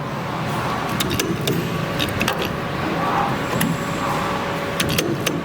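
CNC wire-forming machine running: a steady servo-motor hum broken by irregular sharp metallic clicks as the tooling bends and cuts the wire, with clusters of clicks in the first half and again near the end.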